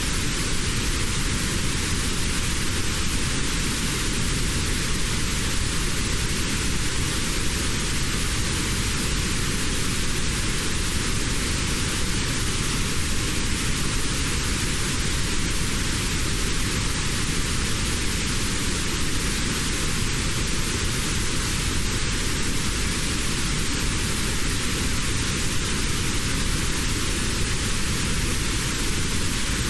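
Steady synthetic white noise, a constant hiss with one narrow band of pitch cut out of it. This is notched noise of the kind used as tinnitus sound therapy.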